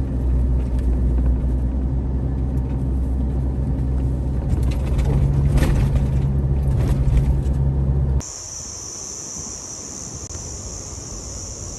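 Vehicle engine running with a steady low rumble, heard as from a moving car. About eight seconds in it cuts to a steady, high-pitched drone of insects.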